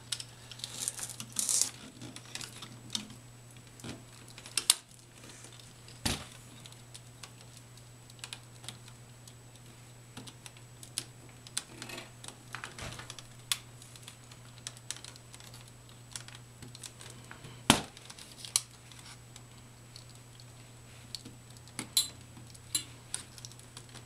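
Scattered small clicks and rustles of fingers seating twisted-pair copper wires into the plastic slots of a Leviton Cat 6 patch panel's 110 punch-down block, over a steady low hum. The loudest click comes about two-thirds of the way through.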